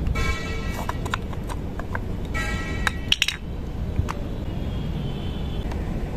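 Small plastic clicks and taps from a Nikon DSLR's body cap being twisted off and a zoom lens being handled at the camera's lens mount, the sharpest cluster about three seconds in. Under them runs a steady low rumble, and a short buzzing tone sounds twice.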